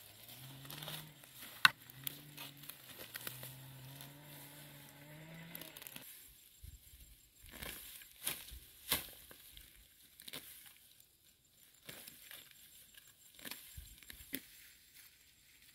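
Hands pulling and tearing weeds in a rice paddy: scattered rustles, crackles and sharp clicks. For the first six seconds a low, wavering drawn-out pitched sound runs under them, then stops.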